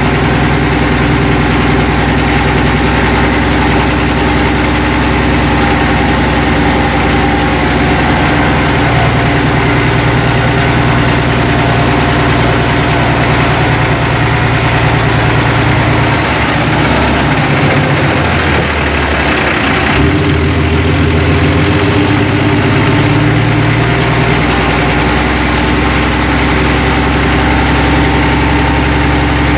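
Hotshot truck's engine running steadily, with its low note shifting and unsettled for several seconds past the middle before settling again.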